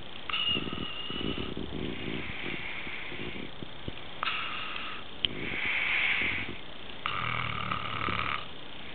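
A man snoring in his sleep: three croaky, rattling snores a few seconds apart, with a breathy exhale in between.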